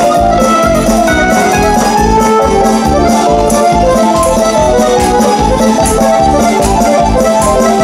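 Live Roma folk dance music led by an electronic keyboard, with a steady, driving beat.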